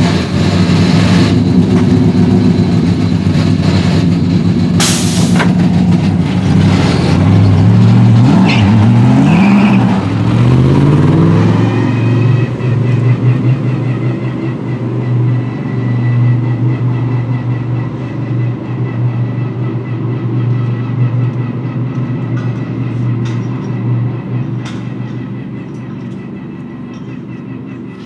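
Jaguar XKR-S GT3's 5.0-litre V8 race engine running loud, revving with rising pitch sweeps a few seconds in as the car pulls away. It then holds a steady note that fades as the car drives off down the pit lane. There is a single sharp crack about five seconds in.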